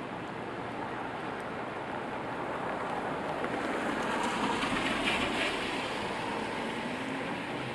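A vehicle passing through city traffic in the rain, its sound swelling to a peak about five seconds in and then easing off, over a steady rain hiss.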